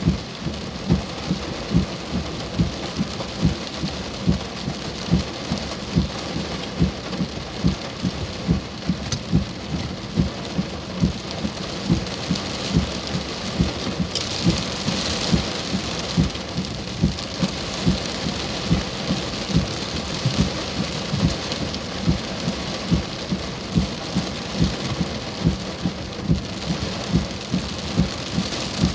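Heavy rain pouring steadily, swelling briefly about halfway through. Under it a short low thump repeats at an even pace, about three every two seconds.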